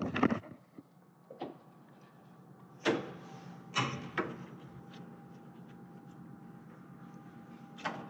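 Several sharp knocks and scrapes of hands and tools working inside a sheet-metal heat pump air handler cabinet, mostly in the first half, with a faint steady hum underneath.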